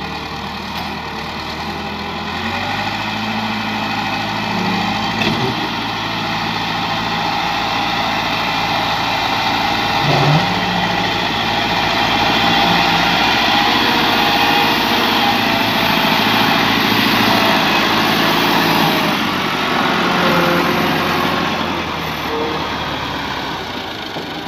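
Massey Ferguson tractor diesel engines running as they pull loaded trolleys. The sound grows louder as a tractor draws close, peaking around the middle of the stretch, then eases off.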